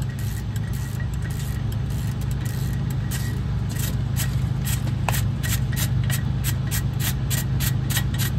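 Half-inch drive ratchet clicking in quick, even strokes, about four clicks a second, starting about three seconds in, as 15 mm caliper bracket bolts are backed out of the front knuckle after being broken loose. A steady low hum sits underneath.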